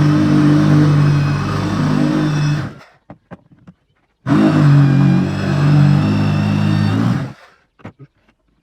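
Electric motor running loudly in two bursts of about three seconds each, stopping abruptly between them and again about seven seconds in.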